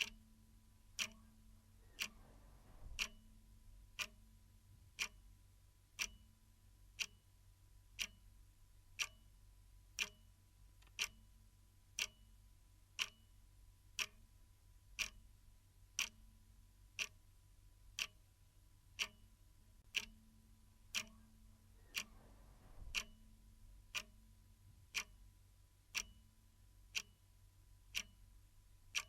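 Clock ticking, one sharp tick each second as the second hand steps, faint and evenly spaced.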